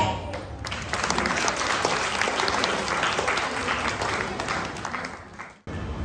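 Audience applauding, a dense clapping that fades toward the end and is cut off abruptly.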